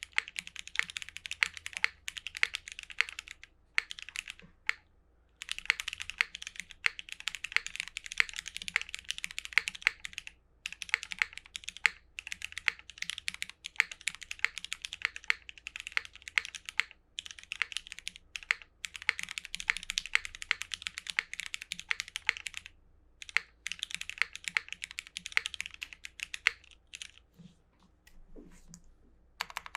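Custom 60% mechanical keyboard being typed on quickly: a Bolsa Supply Midway60 with retooled Cherry MX Black linear switches on 62 g springs, an aluminium flex-cut plate, screw-in stabilizers and GMK keycaps. It gives dense runs of keystrokes broken by short pauses, and the typing grows sparser near the end.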